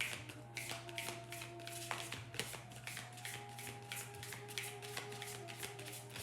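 A deck of tarot cards being shuffled by hand: a quick, uneven run of papery flicks and slaps, several a second.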